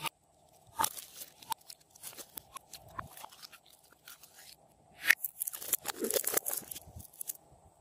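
Glossy slime squeezed and pressed by hand into a small plastic jar, making irregular sticky crackles and clicks that grow into a dense crackling about five seconds in.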